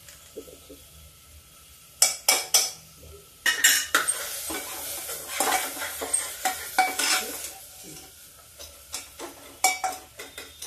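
Metal spoon clinking on an aluminium pressure cooker, then stirring and scraping in the pot as masala fries with a sizzle. It starts with a couple of quiet seconds, and there are a few more sharp clinks near the end.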